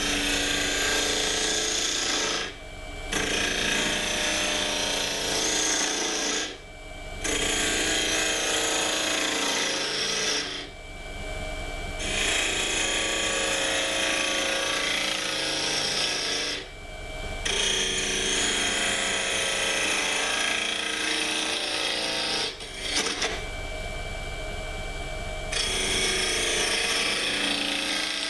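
Gouge cutting into a spinning olive-wood blank on a wood lathe, hollowing the inside of a small box. The steady cutting runs in long passes of several seconds, broken by five short pauses where the tool comes off the wood.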